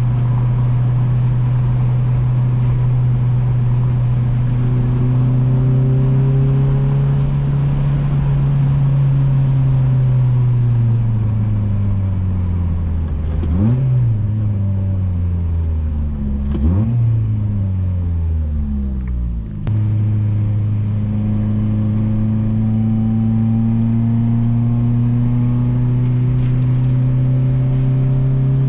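A 1990s Honda's H-series four-cylinder engine pulling a car along, heard from the cabin. It holds a steady pitch, then drops as the car slows. Its revs rise sharply twice, a few seconds apart, and it settles back to a steady cruise about two-thirds of the way through.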